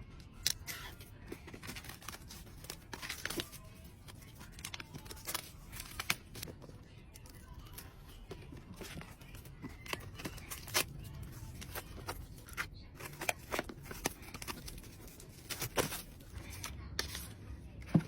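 Packaging being opened by hand: plastic and paper tearing, cutting and rustling, with many irregular sharp clicks and snaps.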